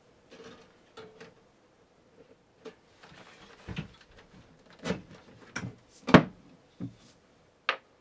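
Thumb screws being loosened and the steel side panel of a Scythe Gekkou PC case being slid off, giving a string of scattered metal clicks and knocks, the loudest about six seconds in.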